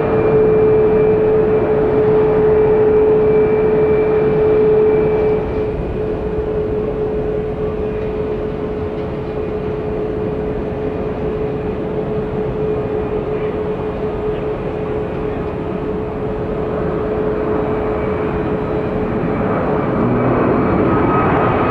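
A departing Boeing 777's jet engines at climb thrust: a steady roar with a strong held whine that drops away after about five seconds. Then the steady rumble of an Airbus A321neo's Pratt & Whitney geared turbofans on the takeoff roll, growing louder near the end as it accelerates and rotates.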